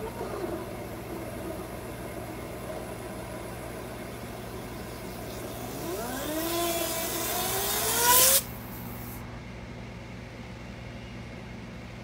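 Compressed-air dryer-vent cleaning hose blowing lint out of the vent duct. A hiss and a whine rising in pitch build to a peak, then cut off suddenly about eight seconds in, leaving a steady low hum.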